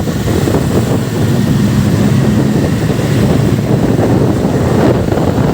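Motorcycle riding through a road tunnel: steady engine and traffic noise with wind buffeting the microphone.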